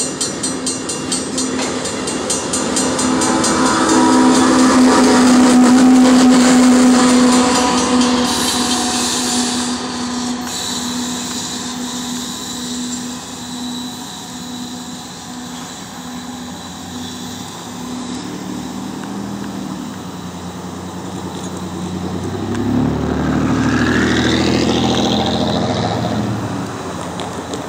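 Rear BNSF ES44C4 diesel locomotive, a GE V12, running past close by at the tail of a freight train with a steady engine hum, loudest a few seconds in, then fading as it draws away. Grade-crossing bells ring and die out in the first seconds. Another engine rises in pitch and passes near the end.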